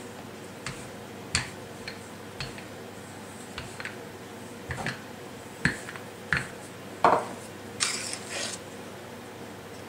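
Kitchen dishes and utensils clattering: a string of light knocks and clinks at irregular intervals, the loudest a duller knock about seven seconds in, followed by a brief scraping noise.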